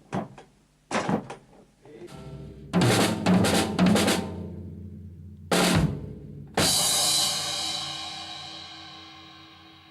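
Drum kit being played: a few single taps, then a quick run of drum strokes, and a last loud hit about two-thirds of the way in that rings on and slowly fades.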